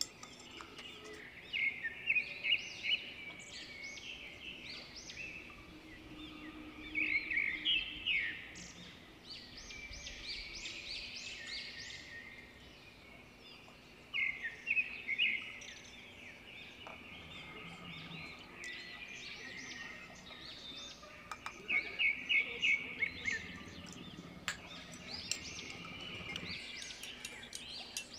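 Songbirds chirping and trilling in repeated bouts of quick high notes, over a steady background hiss.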